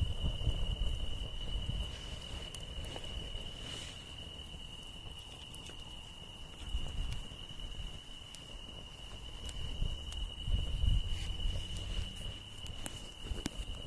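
Night insects chirring steadily at two high pitches, with scattered crackles and pops from a wood campfire and an uneven low rumble.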